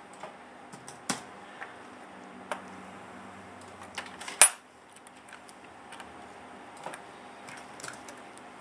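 Light clicks and taps of an Intel Core i3 processor being set into the LGA 1155 socket of a Gigabyte motherboard and the socket's metal load plate being closed over it, with one sharp click about four and a half seconds in as the socket's retention mechanism snaps shut.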